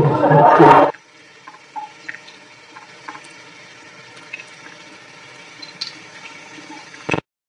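A loud drawn-out cry cuts off about a second in. After it, a thin stream of water runs quietly from a tap into a sink, with scattered small ticks and drips, while a cat drinks at the tap. A brief sharp knock comes just before the sound cuts out near the end.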